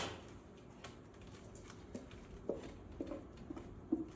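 Kitchen things being handled: a sharp click at the start, then a few soft, scattered knocks and taps.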